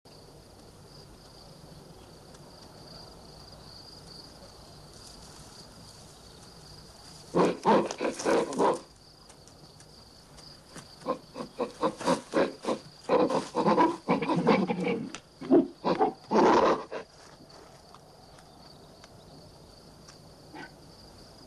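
Man-apes shrieking and grunting in harsh, choppy calls: a short burst about a third of the way in, then a longer run of calls in the middle. A faint, steady high-pitched hiss lies underneath.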